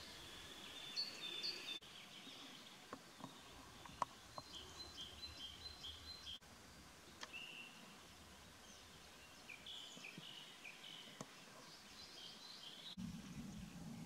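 Songbirds singing faintly in short phrases of quick, repeated high chirps, with a few sharp ticks about four seconds in. A low steady rumble comes in near the end.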